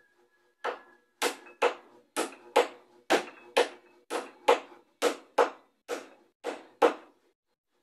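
Hammer blows on the wooden frame of a bangka outrigger boat under repair: about fourteen sharp strikes, loosely in pairs, roughly two a second.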